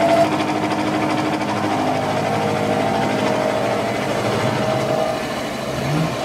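Bridgeport-style milling machine cutting a groove with a carbide insert cutter: a steady cutting noise with a ringing tone over it that fades and returns. The ringing is chatter, a sign of the mill's limited rigidity at this depth of cut.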